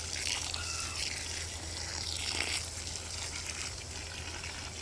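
Water spraying and splashing onto garden strawberry plants as they are watered, a steady hiss that swells and fades a little as the stream moves.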